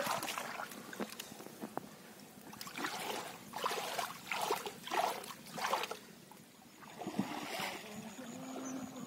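Shallow water splashing inside a fishing net holding small fish: a splash at the start, then a run of about five splashes about three to six seconds in.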